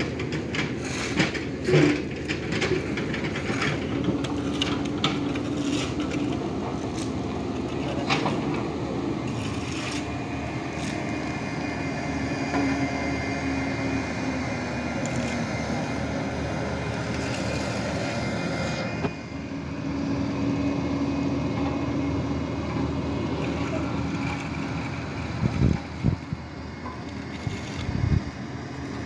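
Shovels and hoes scraping and striking gravel in the first several seconds. Then the diesel engines of a road roller and a backhoe loader run steadily with a held drone, and there are a few knocks near the end.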